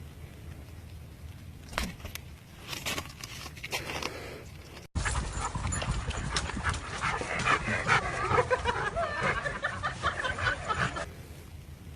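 A dog's sounds, sparse at first, then busier and louder after an abrupt cut about five seconds in.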